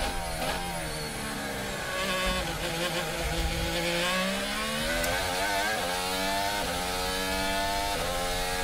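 Onboard sound of a 2018 Mercedes Formula One car's 1.6-litre turbocharged V6 hybrid engine: revs falling as the car brakes and shifts down over the first few seconds, then climbing again under acceleration with an upshift about two thirds of the way in.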